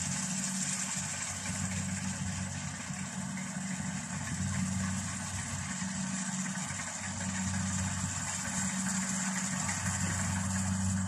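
A large engine running steadily at constant speed, its low hum swelling and easing a little every few seconds, with a steady high hiss over it.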